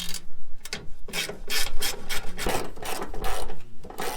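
Hand ratchet wrench backing out the battery tray bolts, a rasping ratchet sound in repeated strokes, about two or three a second.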